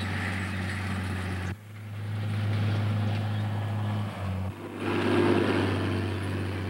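Farm tractor engine running steadily as it pulls a field cultivator through the soil, a low drone with two abrupt breaks, about a second and a half in and again near four and a half seconds.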